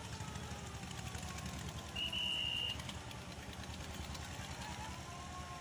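Boat engine running with a steady low rumble, and one short high-pitched beep lasting under a second about two seconds in.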